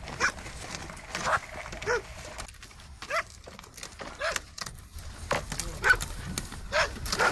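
Large dog that has fallen through pond ice barking in about nine short, high calls, roughly one a second, as it is pulled from the icy water onto an inflatable rescue boat.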